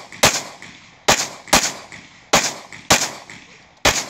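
Pistol shots fired in quick pairs at targets, six in all: one right at the start, then three pairs with about half a second between the two shots of each pair. Each shot is loud and sharp, with a short echo after it.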